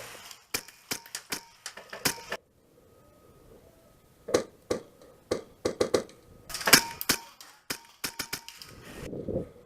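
Airsoft guns firing: sharp, irregular shots in short runs, with a quiet gap of about two seconds partway through.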